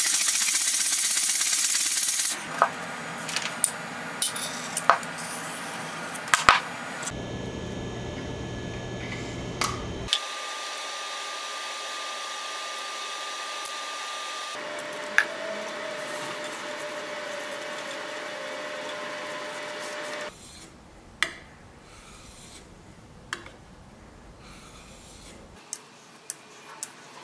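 A cast-iron hand plane's sole rubbing back and forth on sandpaper, a loud scratchy hiss for about the first two seconds. After that comes quieter rubbing with scattered clicks and taps as a sharpening stone is worked against the plane iron.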